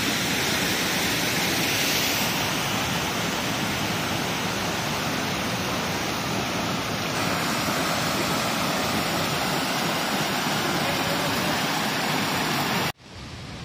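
Loud, steady rush of water, as from a mountain river or waterfall. It cuts off suddenly near the end and gives way to a quieter hiss.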